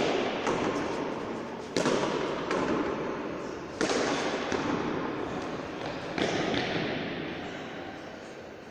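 Pelota strikes in a frontón rally: four loud smacks about two seconds apart, each ringing on in the court's echo, with lighter knocks between them.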